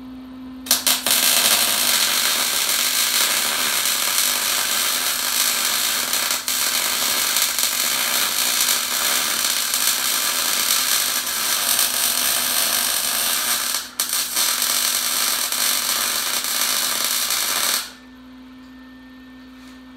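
Electric welding arc crackling and sizzling as a steel bracket is welded onto a truck frame rail. It sputters on about a second in, runs steadily, breaks off for a moment near the fourteen-second mark, and stops a couple of seconds before the end.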